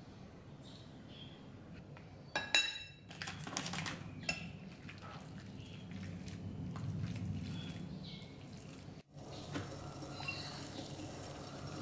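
A metal spoon clinks sharply against a ceramic bowl, then scrapes and clicks around it while mixing sliced raw beef with soy sauce and cornstarch for a marinade.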